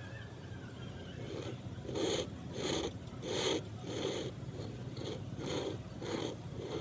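Rhythmic strokes of a hand tool working wood, about two a second, starting about a second and a half in.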